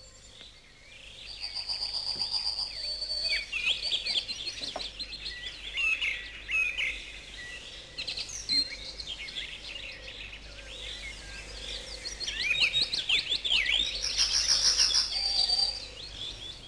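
Songbirds chirping and twittering, many short calls overlapping, loudest in the last few seconds.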